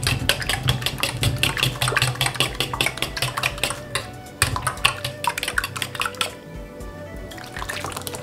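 Fork beating eggs and milk in a stainless steel bowl: rapid clinking of the tines against the metal, several strokes a second, with two short pauses.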